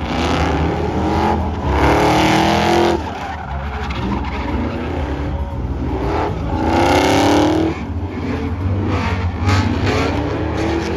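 Ford F-150 pickup doing donuts: the engine revs hard in three rising surges while the rear tyres spin and squeal continuously on the asphalt.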